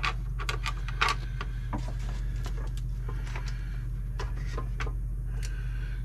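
Scattered plastic clicks and light knocks as the parts of a new Keurig K-Express coffee maker are handled and fitted together, over a steady low hum.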